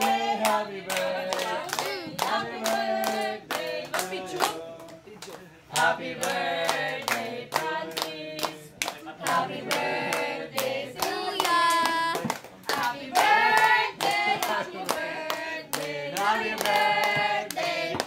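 A small group singing a birthday song together, with hands clapping along in time.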